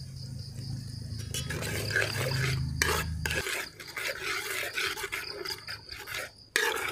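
Long steel ladle stirring and scraping against a large metal uruli of steaming, simmering pickle masala, mixing in salt. A low steady hum sits under the first half and stops about three and a half seconds in.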